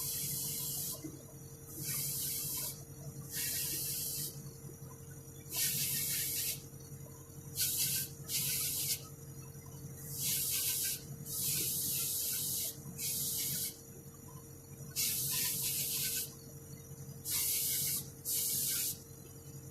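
Paint spray gun hissing in about a dozen short bursts, each under two seconds, as paint is sprayed onto a model car's wheels. A steady hum from the air compressor that feeds it runs underneath.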